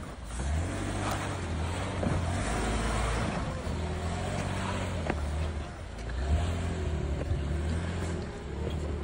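Four-door Jeep Wrangler's engine running at low speed under load while rock crawling over slickrock, swelling and easing off a few times as the throttle is worked, with a short lull just before the middle.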